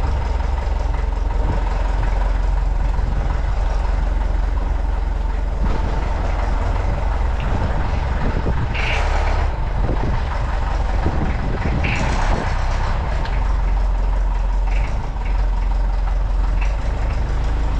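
Heavy diesel machine engine running steadily, with two short hisses near the middle and a few light clanks.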